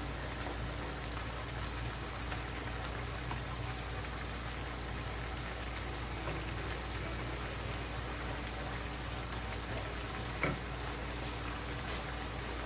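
Bamboo shoots simmering in broth in a frying pan on a gas stove: a steady bubbling hiss. One faint knock about ten seconds in.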